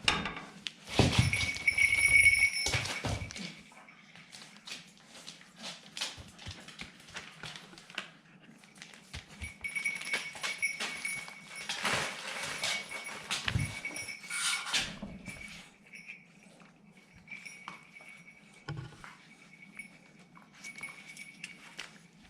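Staffordshire bull terrier puppies making puppy noises and scuffling, with loud bursts about a second in and again about ten to fifteen seconds in.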